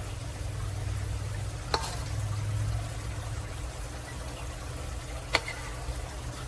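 A metal spoon scooping and scraping thick cake batter out of a stainless steel bowl into a metal loaf pan, with two sharp clinks of spoon on metal, a little under two seconds in and again past five seconds. A low steady hum runs underneath.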